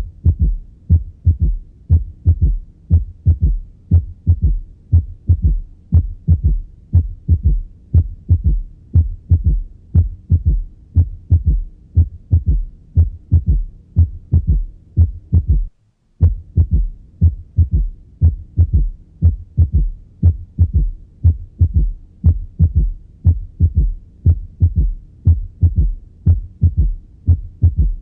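Heart sounds recorded through a stethoscope: a steady run of low, evenly repeating heartbeats, with a very brief break about 16 seconds in. They are presented as an example of a third heart sound (S3), the extra low sound heard right after the second heart sound, from rapid passive ventricular filling.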